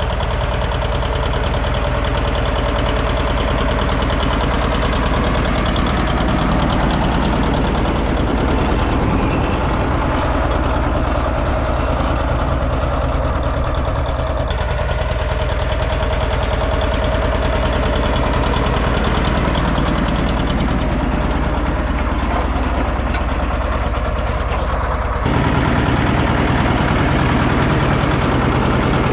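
1960 John Deere 730 Diesel tractor's two-cylinder diesel engine running steadily under load while pulling a culti-mulcher through tilled soil. The tone shifts abruptly about halfway through and again near the end.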